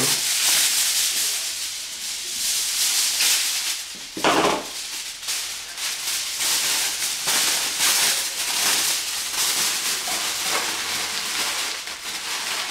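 Aluminium foil crinkling and crackling continuously as a sheet is handled and crumpled by hand around a ball of foil.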